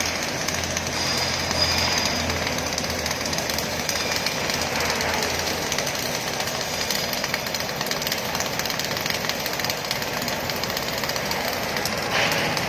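MIG welding arc crackling steadily and rapidly.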